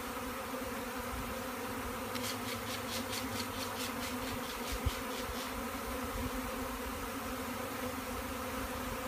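Swarm of honey bees buzzing in a steady, dense hum. A quick run of faint high ticks comes a couple of seconds in, and a short low thump near the middle.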